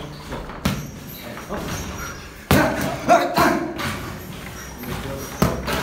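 Boxing gloves smacking into leather focus mitts during pad work: a single hit about half a second in, a quick combination of four punches around the middle, and two more near the end.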